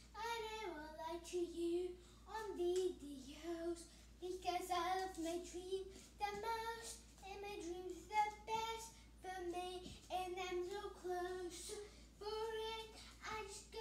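A young girl singing unaccompanied, one voice in short held phrases with brief pauses between them.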